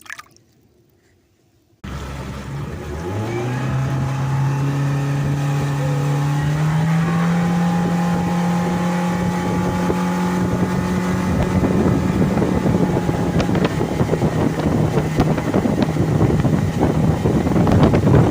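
A motorboat engine starts loudly about two seconds in, climbs in pitch as the boat picks up speed, then holds steady. Wind buffeting the microphone grows toward the end.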